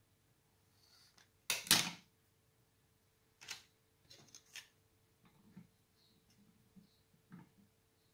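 Metal pastry tubes clinking and knocking on a glass tabletop and against each other as they are picked up and handled, with one louder clatter about two seconds in and lighter knocks after.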